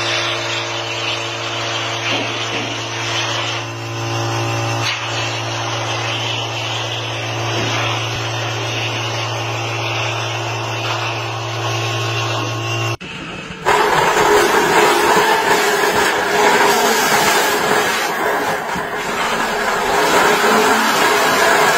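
A steady machine hum with a low drone. About thirteen seconds in it cuts off abruptly and a louder tractor engine takes over, running under load as it pulls a planter through soil.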